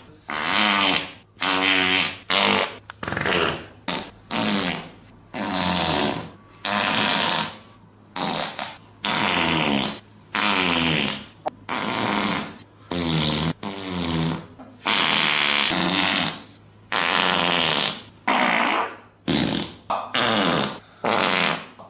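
A long run of fart sounds, about eighteen separate blasts in quick succession, each lasting from half a second to over a second. Many are buzzy with a wobbling pitch, others more airy and sputtering.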